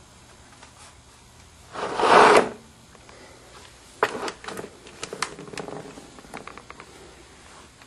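Plastic ball in the track of a circular cardboard cat scratcher toy, batted around by a cat's paws: a loud rolling rush about two seconds in, then a string of clicks and knocks as it is pawed.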